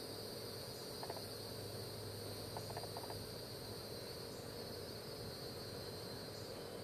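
Steady high-pitched trilling of insects, with a few faint ticks about a second in and again around three seconds.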